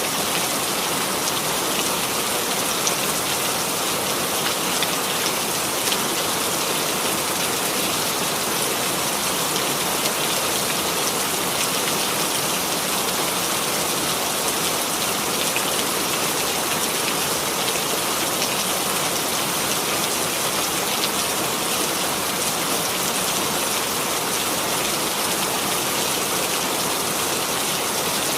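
Steady rainfall, an even hiss of rain on a surface with individual drops ticking through it.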